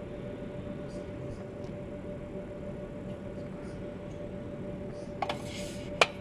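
Steady indoor room hum with a faint steady tone underneath. Near the end comes a brief rustle, then one sharp click.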